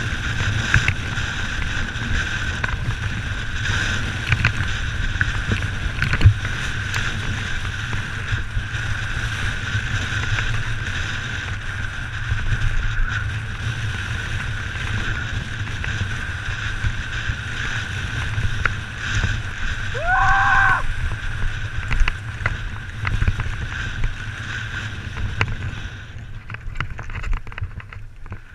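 Mountain bike descending a rocky gravel trail, heard from a helmet-mounted camera: wind rumble and the tyres and bike rattling over stones, with a steady high buzz throughout. About 20 s in, a short rising call-like tone sounds once; near the end the high buzz drops away and the noise gets lighter.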